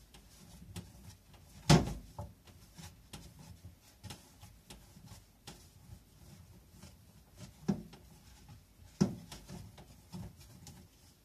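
Hands rolling and shaping bread dough on a wooden cutting board: soft rubbing and small taps, with three sharp knocks, the loudest about two seconds in and the other two close together near the end.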